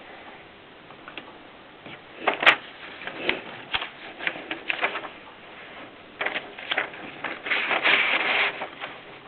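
AEG Mignon 4 index typewriter being typed on: irregular sharp clacks of the mechanism striking, with a denser rattling run of strokes about eight seconds in.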